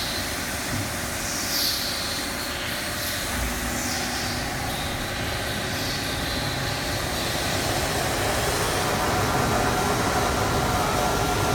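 CNC tool grinding machine running: a steady mechanical noise, with a few short falling high tones in the first half and a faint steady whine coming in about nine seconds in.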